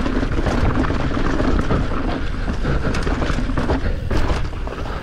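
Heavy low wind rumble on a rider-mounted camera's microphone, with scattered rattles and knocks of an enduro bike running over rough trail.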